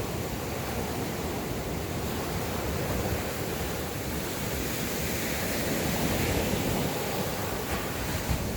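Sea surf breaking on a sandy beach: a steady, even rush of waves.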